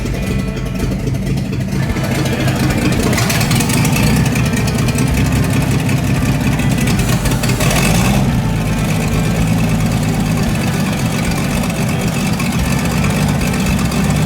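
Toyota 2F inline-six engine, freshly installed in the Land Cruiser, running steadily after building up over the first couple of seconds, with a brief swell about eight seconds in.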